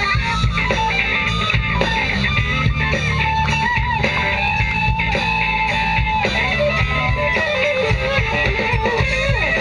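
Live rock band playing loudly: electric guitar, bass guitar and drum kit, with a lead line of wavering, bent notes over a steady beat.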